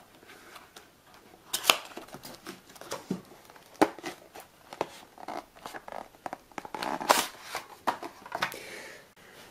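Cardboard box of a Samsung solid-state drive being opened and its packaging handled: irregular rustling and scraping with several sharp clicks and taps.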